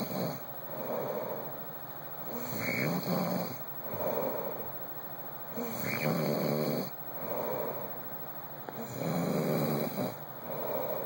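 A man snoring in his sleep, loud breath after breath in a steady rhythm. A short high whistle rides on the start of some of the snores, twice in this stretch.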